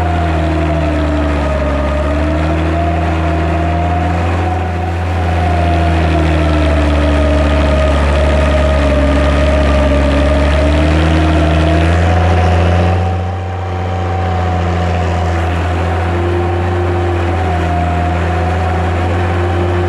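Massey Ferguson 95X tractor's six-cylinder diesel engine running steadily, with a deep drone whose pitch wavers slightly up and down.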